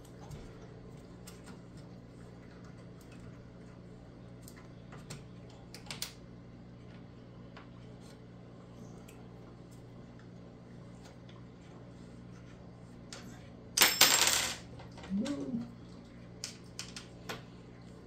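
Faint clicks and metallic clinks of screws being tightened into a metal bakers rack frame. A loud, brief metal clatter comes about 14 seconds in, and a few more clicks follow. A steady low hum runs underneath.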